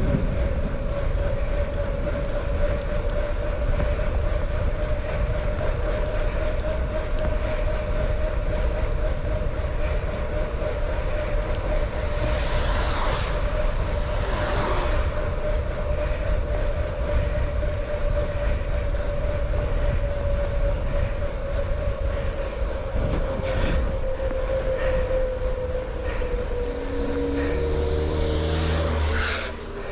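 Bicycle ride on a wet road: steady wind and road noise, with a steady whine that slides lower near the end. Two brief hissing swooshes come about halfway through and another near the end.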